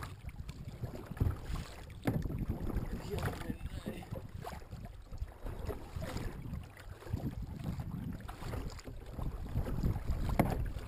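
Double-bladed kayak paddle stroking through the water, with a splash every second or two, and wind rumbling on the microphone.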